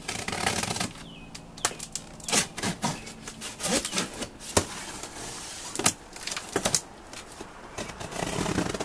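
Packing tape on a cardboard box being slit with a blade and torn, the cardboard flaps scraping and rustling as they are pulled open, with scattered clicks and knocks of handling.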